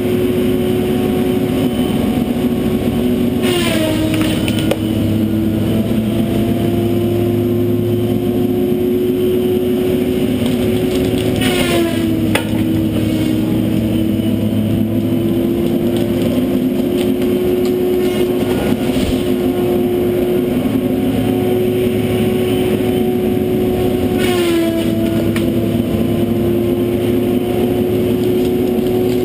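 John Deere 843J wheeled feller buncher running at high revs with a steady high whine from its spinning disc saw head. Three times the whine drops in pitch with a burst of crackle as the saw cuts into a tree, then winds back up.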